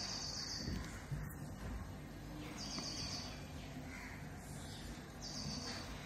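A high, thin chirping trill, repeated three times about every two and a half seconds, over faint low rustling and knocks.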